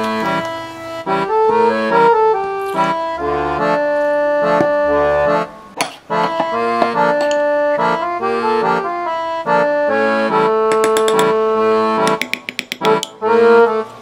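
Instrumental background music: a melody of held notes over a moving lower line, with a short break about six seconds in.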